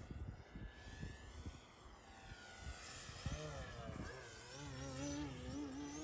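Electric motor and propeller of an E-flite Timber X RC plane buzzing in flight, its pitch wavering up and down and growing clearer about halfway in. Wind buffets the microphone.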